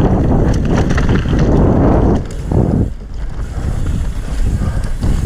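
Wind rushing over the microphone and mountain bike tyres rolling over loose rock and gravel on a fast descent, a steady noisy rumble that eases for a moment about two seconds in.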